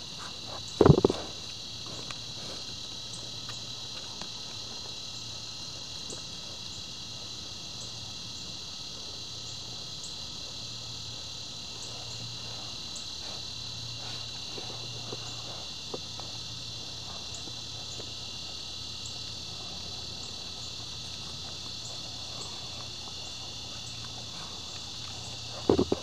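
Steady, high-pitched chorus of insects trilling, with a loud knock about a second in and another just before the end.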